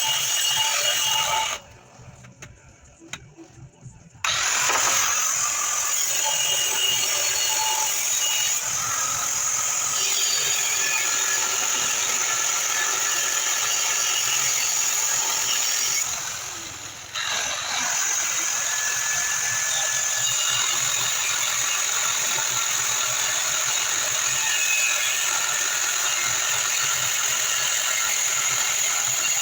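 Angle grinder running on steel: a steady high whine with grinding hiss. It stops briefly about two seconds in and again about halfway through.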